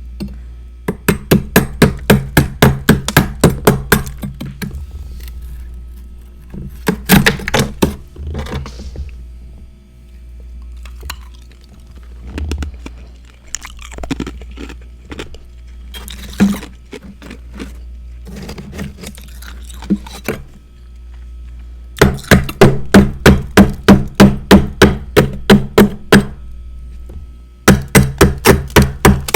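Close-up chewing of crunchy freezer frost: fast runs of sharp crunches, about five a second, with scattered single cracks and quieter mouth sounds between the runs. A steady low hum lies underneath.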